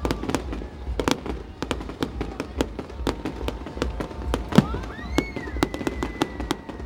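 A fireworks display: a rapid, irregular series of sharp bangs and crackles, several a second, the loudest about four and a half seconds in. A whistling tone rises and falls about five seconds in and then holds steady.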